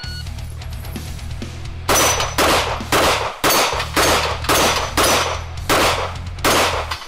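Rapid handgun fire at steel targets: about nine shots roughly half a second apart, starting about two seconds in, over a background music track.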